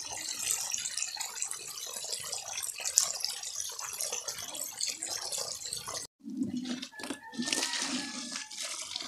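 Water gushing from a pipe outlet into a pond tank, splashing and bubbling steadily as the tank fills. About six seconds in, it changes to a hose stream pouring into plastic tubs, a fuller, deeper splash.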